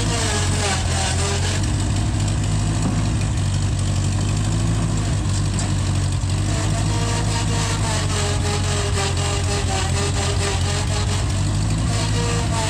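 Gehl Hydracat 4400 skid steer's engine running steadily, with a higher tone over it that wavers in pitch from about six seconds in.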